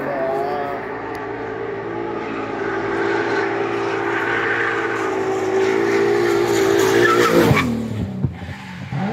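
Race car at a hill climb, its engine held at high revs and growing louder as it comes up the road, then passing close by with a sudden drop in pitch about seven and a half seconds in.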